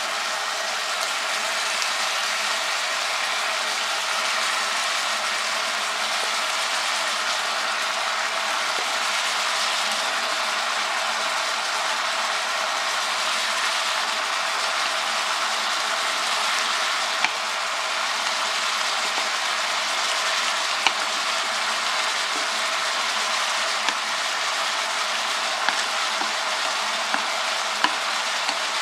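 Meat frying in an electric skillet: a steady sizzle. In the second half a few light clicks of chopsticks against the plate and pan as greens are pushed in.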